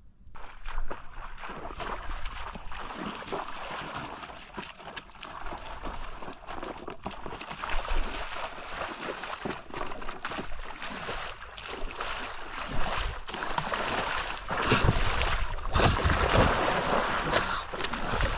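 Water splashing and sloshing as a person wades through a shallow muddy channel and pushes water along, growing louder towards the end as the wading comes closer.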